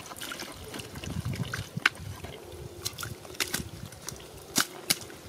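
Thick wet mud squelching and sloshing as hands and a plastic basket work through it, with a handful of short, sharp wet slaps and smacks scattered through.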